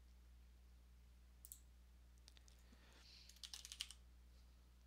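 Near silence, with a faint single click about one and a half seconds in, then a quick run of faint computer-keyboard keystrokes about three and a half seconds in as a short word is typed.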